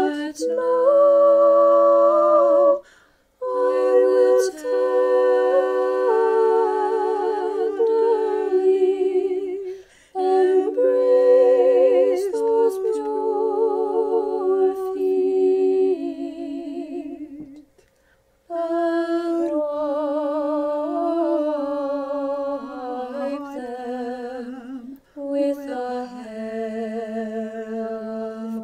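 Unaccompanied choir singing Orthodox chant in several-part harmony: long, held chords with vibrato in phrases broken by short pauses, four times in all.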